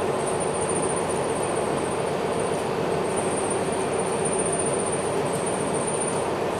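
Steady cabin noise of a MAN NL323F A22 single-deck city bus driving slowly: the rear diesel engine's drone mixed with road and body noise, with a thin high-pitched whine above it.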